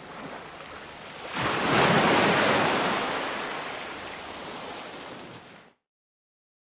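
Ocean wave breaking on the shore: a rushing surge builds about a second and a half in, then washes out and slowly fades. Near the end the sound cuts off suddenly into dead silence.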